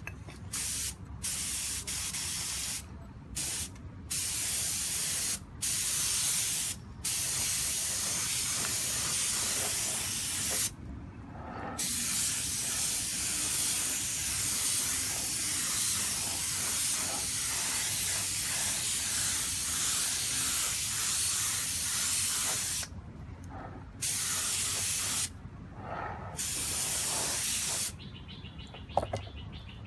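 Compressed-air spray gun hissing as it sprays mirror-chrome paint. It comes in several short blasts in the first seven seconds, then long passes of several seconds each, and stops near the end, with a steady low hum underneath.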